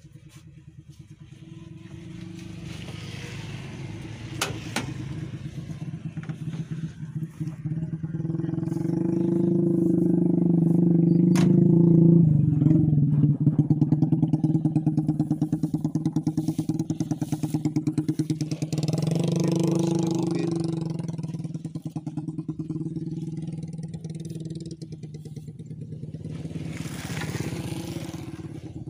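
Suzuki Futura pickup's engine running steadily, growing louder toward the middle and then easing off, with a few sharp clicks.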